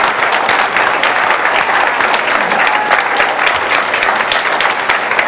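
Audience applauding: many people clapping at once in a steady, sustained ovation.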